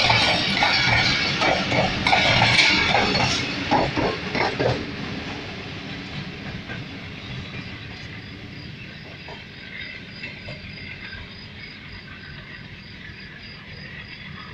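Coaches of a passenger train running through a station at speed, wheels clacking over the rail joints. About five seconds in the clatter fades to a low, steady rumble as the end of the train draws away.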